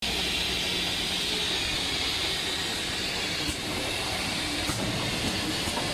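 Bottle screw-capping machine running: a steady mechanical noise with a hiss and a low hum, and a few faint clicks in the second half.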